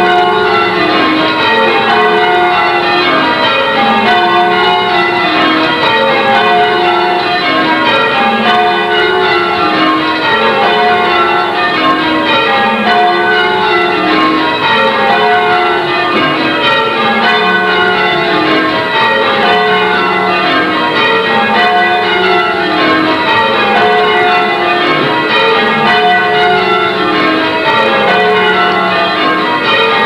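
A ring of church bells being rung full-circle in change ringing, a steady stream of strikes with each row running down the scale and starting again every couple of seconds, heard from the ringing chamber below the bells.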